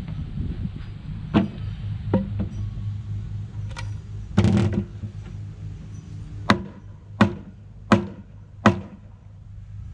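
Hammer striking a wooden board: a few lighter knocks and a longer clatter, then four strong blows evenly spaced a little under a second apart.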